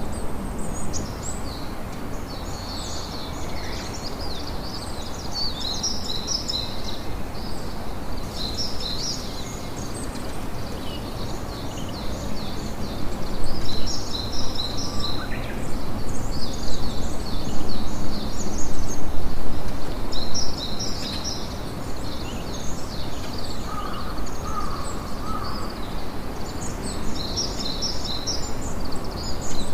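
Campfire crackling steadily, a little louder midway through, with high chirping bird calls coming in repeated bursts over it.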